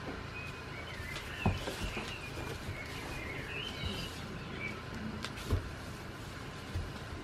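Small birds chirping and twittering in the background over a steady hum of ambient noise, with a few dull thumps, the loudest about a second and a half in and again near five and a half seconds, from goats moving right beside the camera in the straw.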